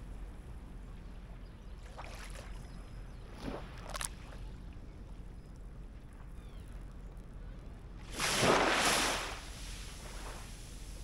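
Small waves washing up a flat sandy shore over a steady low rumble: a few faint swishes in the first four seconds, then one louder rushing wash of foam about eight seconds in that fades over a second or two.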